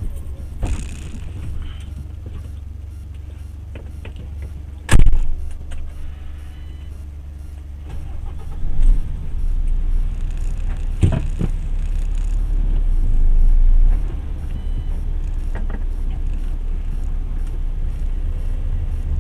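Lorry's diesel engine running, heard from inside the cab as a steady low drone. There is a sharp knock about five seconds in and a couple of clicks around eleven seconds. The drone grows louder from about nine to fourteen seconds as the truck starts to move.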